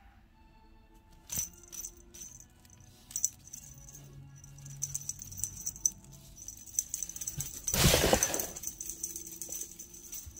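Small bells on a cat wand toy jingling and rattling as the toy is shaken and swatted, with a loud rustle about eight seconds in.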